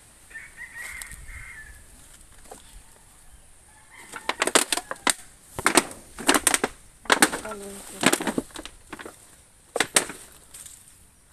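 Leaves and broken tree branches rustling and crackling right against the microphone as someone pushes through fallen branches. From about four seconds in it becomes a string of loud, sharp crackles and swishes.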